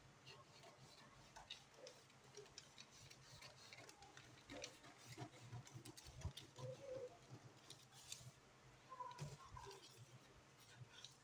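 Scissors snipping through a paper pattern, a string of faint, irregular snips and paper crackles.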